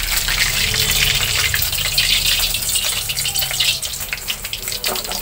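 Hot oil sizzling and crackling in a wok of frying chicken, over the steady low rush of an open gas burner flame.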